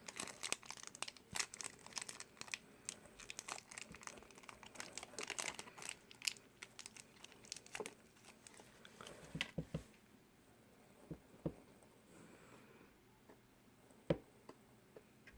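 Plastic toy wrapper crinkling and tearing as a small blind-bag figure is unwrapped by hand, dense for the first several seconds. Then it thins to scattered light clicks and taps, with one sharper knock near the end.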